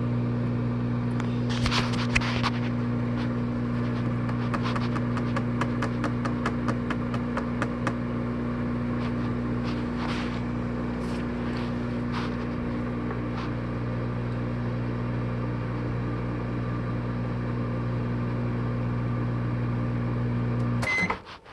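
Avanti countertop microwave oven running with a steady electrical hum. About 21 seconds in it cuts off abruptly with a short beep as it is stopped.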